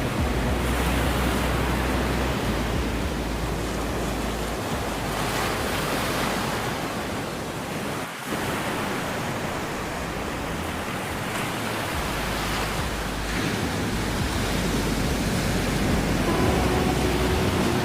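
Ocean waves breaking and washing up on a beach: a continuous surf rush that swells and eases, briefly dropping about eight seconds in.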